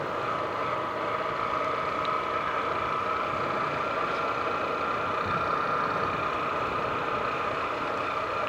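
150 cc motorcycle engine running at a steady pace while being ridden, its pitch holding level throughout.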